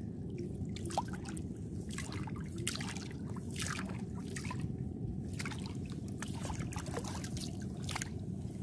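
Shallow seawater splashing and trickling as a hand rummages through it into the wet sand, feeling for clams, in irregular small splashes over a steady low background rumble.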